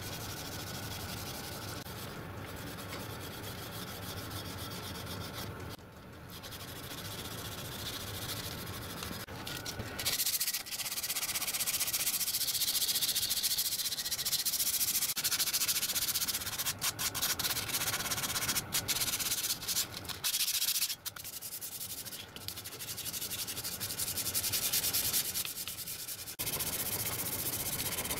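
Hand abrasive scouring light surface rust off small cast-iron lathe castings in a continuous scratchy rubbing. It gets louder and harsher about ten seconds in, with a few short pauses between bouts of strokes.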